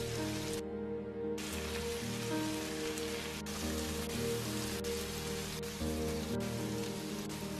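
Chicken, onion and chilies sizzling in a frying pan, with a few sharp clicks as the spatula stirs against the pan; the sizzle drops out for under a second about a second in. Soft background music with slow held chords plays underneath.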